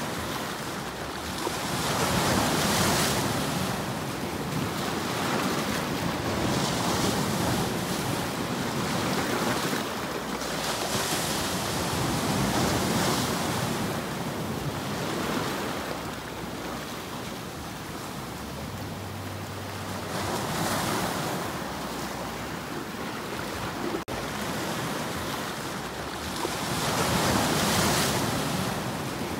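Sea waves breaking and splashing over shoreline rocks, the surf swelling and washing back every few seconds.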